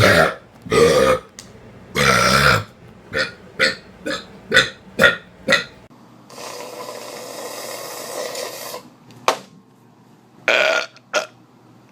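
People burping on command: a few loud, drawn-out belches, then a quick run of about eight short burps, about three a second. A stretch of steady hiss-like noise follows, and a few more burps come near the end.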